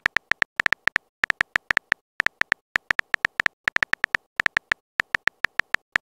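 Virtual phone-keyboard typing sound effect: short, bright synthetic key clicks, several a second in quick uneven runs, one per letter typed.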